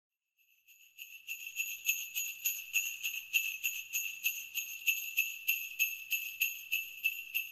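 Sleigh bells shaken in a steady rhythm, about three shakes a second, each shake a bright jingle. They fade in during the first second.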